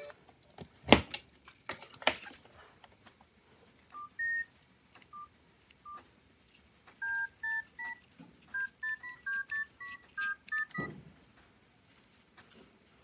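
Nokia C2-01 keypad tones as its keys are pressed: a few single beeps, then a quick run of about a dozen short two-note dialing beeps. Two sharp knocks come in the first two seconds, and a dull thump follows the last beeps.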